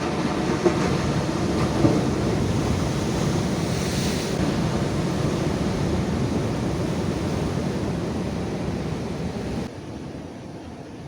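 Steady rushing noise of sea waves with wind buffeting the microphone, with two brief knocks in the first two seconds. It drops away suddenly near the end.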